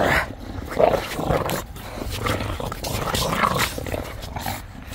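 Bulldogs growling in play during a tug-of-war, in loud, uneven bursts. The growling is playful, not aggressive.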